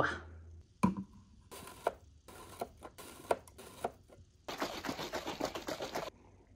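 A countertop protein powder dispenser turned by hand, a string of clicks as the powder drops into a plastic shaker bottle. Then, about four and a half seconds in, the shaker bottle is shaken hard for about a second and a half.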